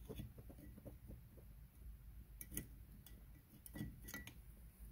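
A few faint, sharp metallic clicks and ticks: needle-nose pliers and a small pin knocking against a Holley 2-barrel carburetor body as the pin is dropped into place.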